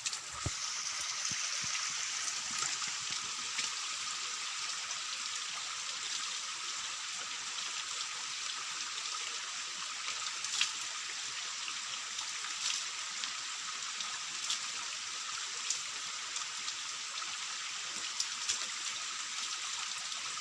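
Spring water trickling and running steadily in a forest pool, with occasional short, sharp ticks over the steady flow.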